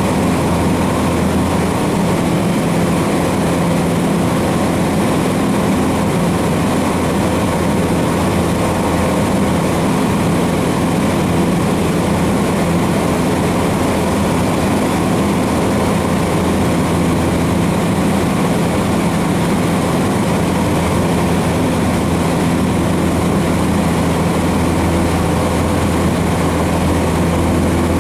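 Cessna 150's four-cylinder Continental O-200 engine and propeller droning steadily, heard from inside the cockpit in flight.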